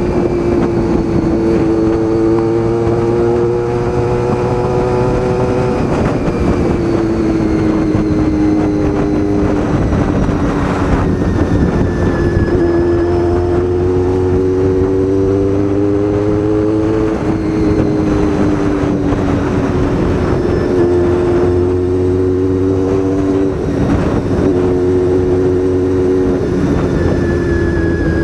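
Honda VFR400 NC30's 400 cc V4 engine pulling under way, its pitch climbing and easing off, with several sudden drops in pitch as it is shifted through the gears. Wind and road noise rush under it.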